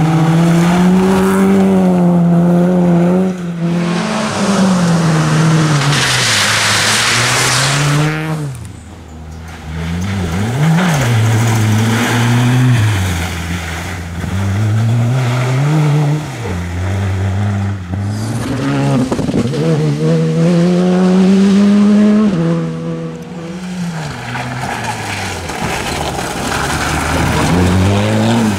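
Rally cars passing one after another on a muddy dirt stage, their engines revving up and dropping back through gear changes and lifts. There is a loud rush of tyres on loose gravel and mud about six seconds in.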